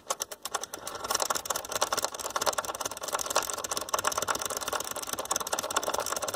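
Rapid, steady clicking of a stereo receiver's push-button switches being worked over and over to spread DeoxIT contact cleaner through their contacts.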